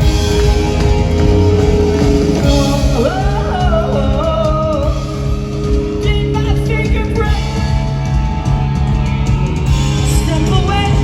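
Rock music with a singing voice over a full band backing.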